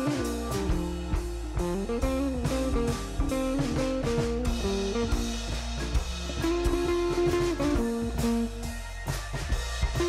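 Instrumental background music: a guitar melody over bass and a steady drum beat.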